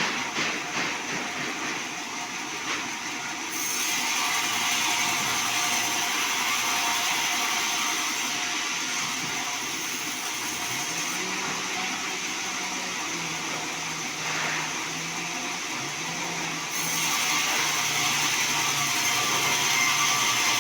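Band sawmill running and cutting through a log: a steady machine noise with a hissing cut that grows louder and falls back several times, a few knocks near the start, and a low wavering hum joining about halfway through.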